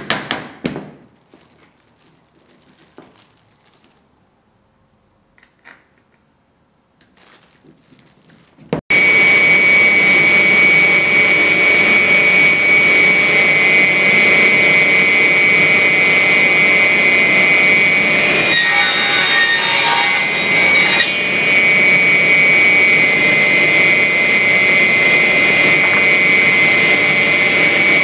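A last hammer blow, a few quiet seconds, then a radial arm saw is switched on about nine seconds in and runs with a steady high whine. About ten seconds later the blade cuts through the end of the wooden truss at a 60° angle for a couple of seconds, then spins on freely.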